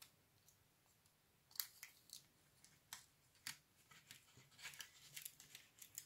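Faint rustling and small scattered clicks of fingers pressing and smoothing a piece of adhesive tape onto a cardboard strip, coming more often in the second half.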